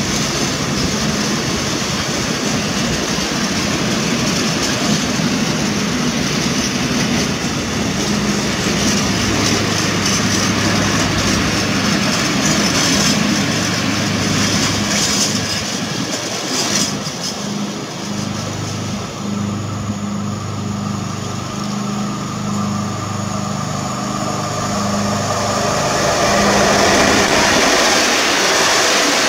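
Freight wagons, flat wagons and tank wagons, rolling past on the rails, their wheel noise thinning out as the train draws away. A steady low hum pulses on and off in the middle. Near the end a regional passenger train's coaches pass close, louder.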